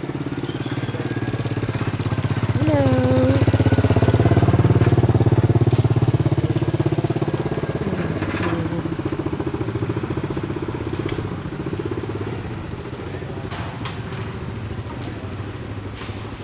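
A small engine running steadily, growing louder for a few seconds and then fading, like a motor vehicle passing. A short swooping call sounds about three seconds in, and a few sharp clicks follow later.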